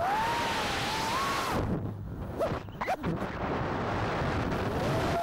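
FPV quadcopter's 6S 1800KV brushless motors and props whining, the pitch rising with throttle. The whine cuts out about a second and a half in, gives two short blips, and a rising rush of wind noise follows. The motors spool back up near the end.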